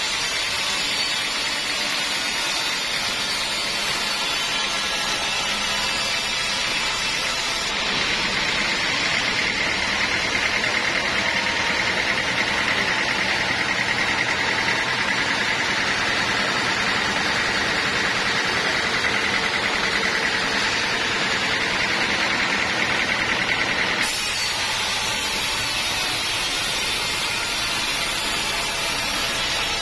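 Sawmill saw running steadily, with a higher steady whine that starts suddenly about eight seconds in and stops suddenly some sixteen seconds later.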